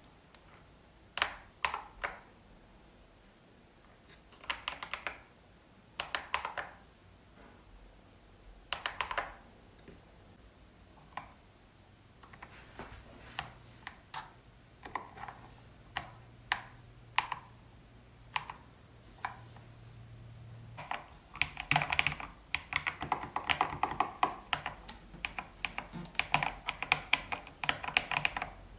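Epomaker Shadow-X mechanical keyboard being typed on: scattered single keystrokes and short bursts at first, then steady fast typing from about two-thirds of the way in.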